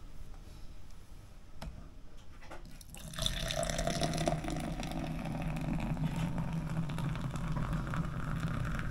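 Beer being poured into a tall glass, starting about three seconds in and running steadily as the glass fills.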